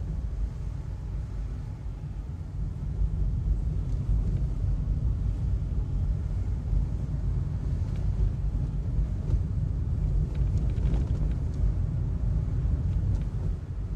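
Car driving slowly on a city street, heard from inside the cabin: a steady low rumble of engine and tyres on the road.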